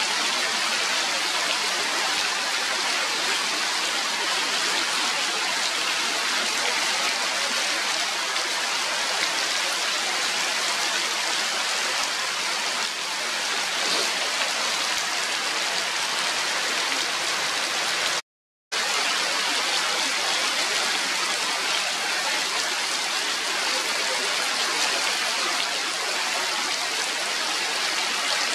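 Steady rain falling on forest trees and leaves, an even continuous hiss. It drops out to silence for a split second about two-thirds of the way through.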